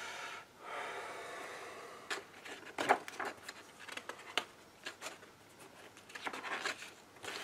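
Paper handling as the pages of a softcover rulebook are turned: a smooth sliding rub of hand on paper for the first two seconds or so, then a series of short crinkles and flicks as pages are flipped over.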